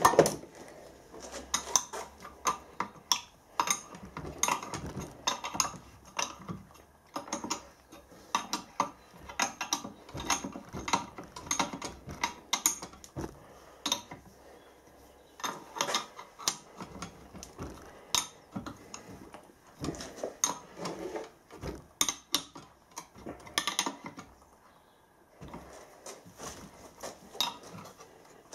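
Metal tools clinking and a ratchet spanner clicking in short runs as the nuts on a steam engine's main bearing caps are tightened down, clamping the bearings onto the crankshaft.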